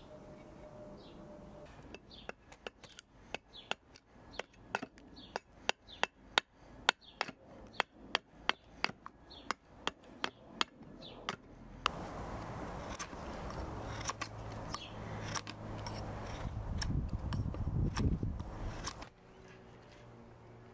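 Small hand axe hewing a block of dry ash wood on a chopping stump: a run of sharp chopping strikes about two a second, then past the middle a louder, denser stretch of rapid cutting and scraping that stops suddenly shortly before the end.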